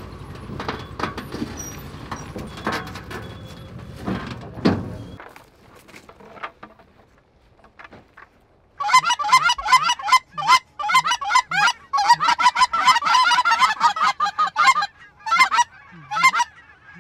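A vehicle engine rumbles with a few knocks, stopping about five seconds in. After a few nearly quiet seconds, a flock of geese starts honking, many calls overlapping, and keeps on to the end.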